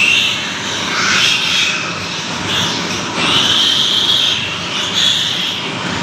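A litter of piglets squealing in repeated high-pitched waves as they nurse from a sow, over a loud, steady noise.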